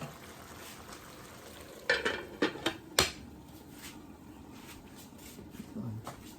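Metal spoon clinking and scraping against a cooking pot as the curry is stirred, with a cluster of sharp knocks about two to three seconds in, the loudest near three seconds.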